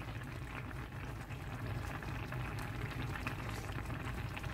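Spicy Korean tofu stew boiling in a shallow pan: steady bubbling broth with scattered small pops over a low rumble.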